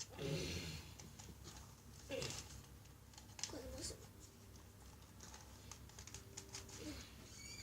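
Faint, scattered clicks and clatters of plastic Lego pieces being handled, with a few short vocal sounds from a child.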